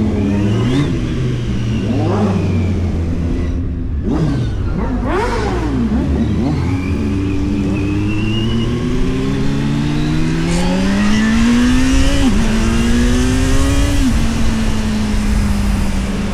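Kawasaki Z900 inline-four engine revving: several quick throttle blips in the first few seconds, then a long pull rising steadily in pitch. The pitch drops twice near the end as it shifts up, then holds steady.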